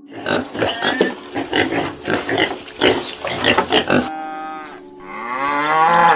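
Farm animals calling: a run of short rough calls for about four seconds, then one long pitched call that rises and grows louder near the end.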